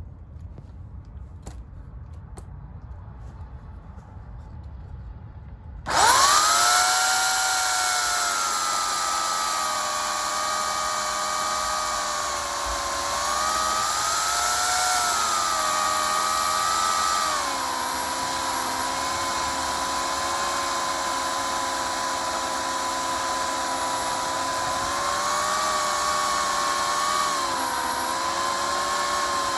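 Oregon CS1500 15-amp corded electric chainsaw starting suddenly about six seconds in and running with a steady high motor whine. Its pitch sags a few times as it bites into wood under load.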